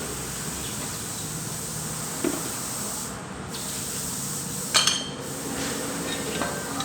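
Metal objects handled against each other: a soft knock about two seconds in and a sharp metallic clink with a brief ring near the middle, over a steady background hiss.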